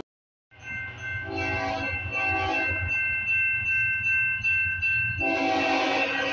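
Multi-tone locomotive air horn on a BNSF ES44C4 leading a freight train, starting after a brief silence and sounded in a few blasts that run into a long held chord, over the low rumble of the approaching locomotive.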